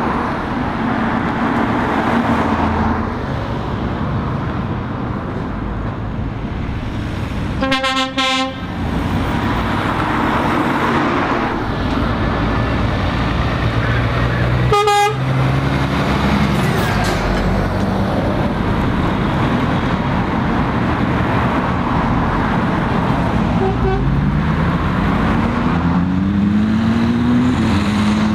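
Lorries and cars running past at a roundabout, with two horn toots: a longer one about eight seconds in and a short one about fifteen seconds in. Near the end an engine revs up, rising in pitch.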